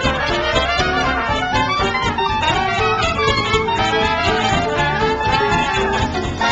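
Instrumental background music with held melodic notes.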